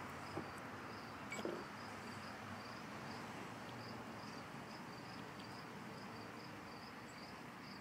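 An insect chirping steadily in a high, even rhythm of about two to three chirps a second, with a few faint clicks in the first two seconds.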